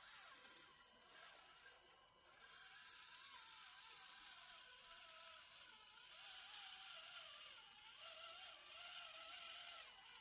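Near silence: faint background ambience, a low wavering hum under a steady hiss.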